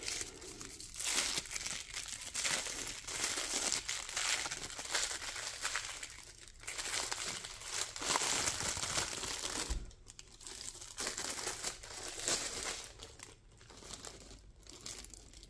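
Packaging wrapper crinkling and rustling as a diecast model part is unwrapped by hand, in uneven bursts that thin out near the end.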